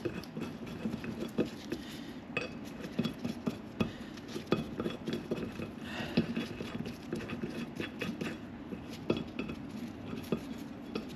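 Irregular light metallic clinks and taps of lug nuts and small steel hardware being handled and fitted at a truck's front hub.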